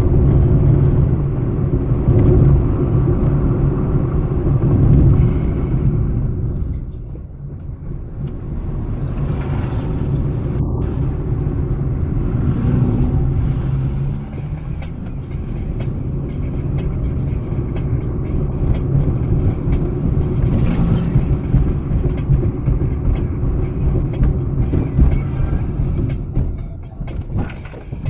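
Car engine and road noise while driving, a steady low rumble, with music playing over it.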